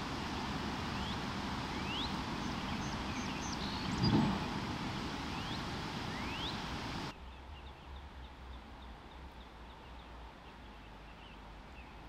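Outdoor ambience: a steady rushing noise with birds chirping in short rising calls, and a low thump about four seconds in. At about seven seconds it cuts abruptly to quieter riverside ambience with faint bird chirps.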